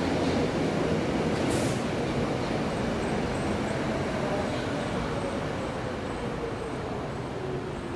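Berlin S-Bahn electric train running on the station tracks: a steady rumble that slowly eases off, with a faint motor whine falling gradually in pitch. A short hiss about a second and a half in.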